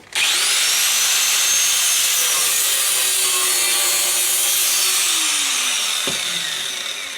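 A power cutting tool with a cut-off disc slicing into the steel exhaust muffler of a Honda CT110 postie bike. It starts abruptly and cuts steadily with a high whine, and the whine falls as it slows down near the end.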